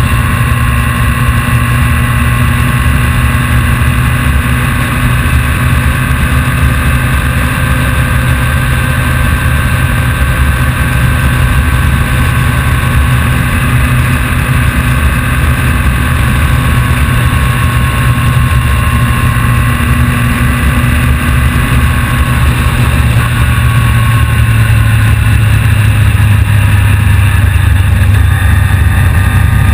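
Vehicle engine running steadily under way: a loud low rumble with a steady whine above it, growing a little louder over the last few seconds.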